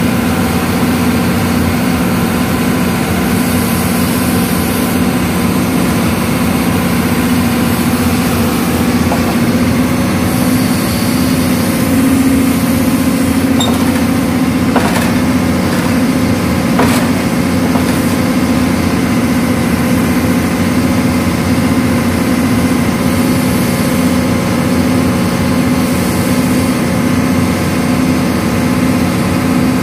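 Hyundai excavator's diesel engine running steadily as the arm moves, heard from the operator's cab, with two short knocks about halfway through.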